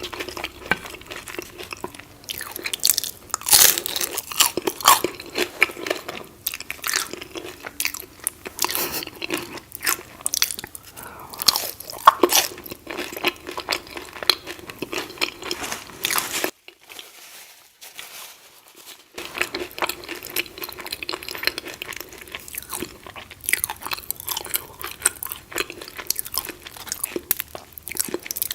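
Close-up crunching and chewing as hard, crunchy taco shells are bitten and eaten, with dense irregular crackles. There is a short pause about two-thirds of the way through.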